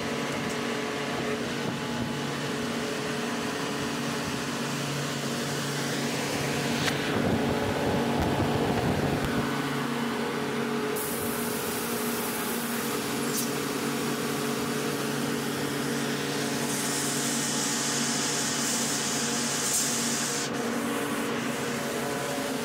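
Atlas Copco GA160 oil-injected rotary screw air compressor running, a steady mechanical drone with several constant hum tones. High air hisses break in twice, about eleven seconds in and again from about seventeen to twenty seconds.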